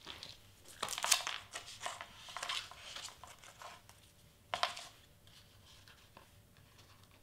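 Crinkling and tearing noises from a roll of double-sided tape being handled and its end picked and peeled from the roll, in several short bursts, the loudest about a second in.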